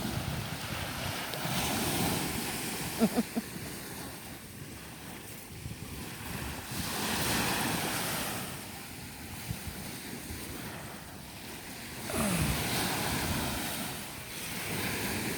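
Ocean surf breaking on a beach, swelling and fading every few seconds, with wind buffeting the microphone. A short pitched sound about three seconds in is the loudest moment, and a brief falling call comes about twelve seconds in.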